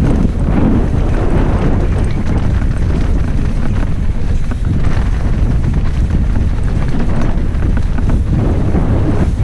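Wind buffeting the microphone of a camera on a mountain bike descending at speed, a loud steady rumble with many small knocks and rattles from the bike on the trail underneath.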